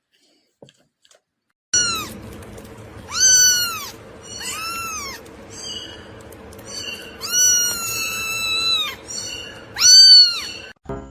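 A cat meowing over and over, starting about two seconds in: a string of short calls and one longer one, each rising and then falling in pitch.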